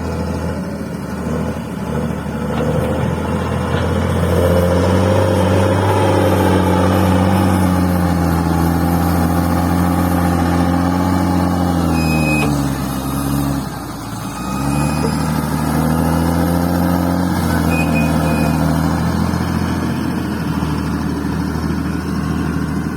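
Bulldozer's diesel engine running under load while pushing fill soil. About thirteen seconds in the engine pitch sags and drops, then comes back up to a steady run a second or so later.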